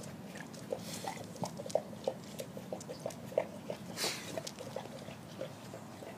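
Anatolian Shepherd Dog walking on concrete in duct-taped boots: irregular scuffing steps with many short squeaks, several a second, and a brief louder scuff about four seconds in.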